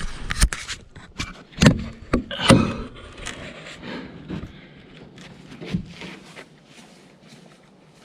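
Several sharp knocks and scraping of wood, loudest in the first three seconds, then trailing off into light clicks and rubbing.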